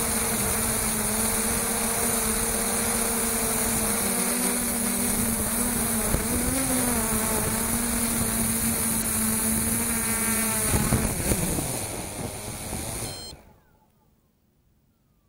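Traxxas Aton quadcopter's motors and propellers buzzing steadily in flight, heard from the camera mounted on the drone, with a high whine and a hiss of prop wash. The pitch wavers as it manoeuvres, sinks as it comes down, and the motors stop abruptly about thirteen seconds in as it sets down in the grass.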